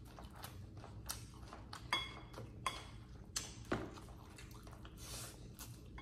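Close-up eating sounds: chewing and small mouth clicks, with a light clink of a utensil on a dish about two seconds in that rings briefly.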